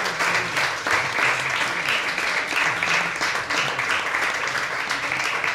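An audience applauding: steady clapping from a roomful of people.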